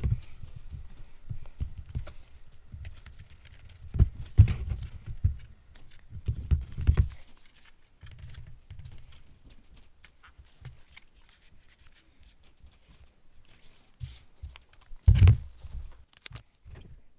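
Handling noise from a Yoshimura RS-9T motorcycle muffler being turned in the hands and set on a wooden table, with irregular dull knocks and rustling. The loudest knocks come about four seconds in, around seven seconds, and near the end.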